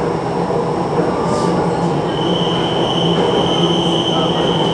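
Jakarta MRT train running along elevated track, heard from inside the passenger car: a steady rumbling ride noise, with a steady high whine coming in about halfway through and holding.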